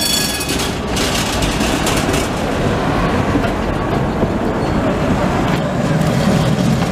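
Vintage electric tram passing close by, its wheels running over the rails with a steady rolling rumble. A high-pitched whine at the very start fades within the first second.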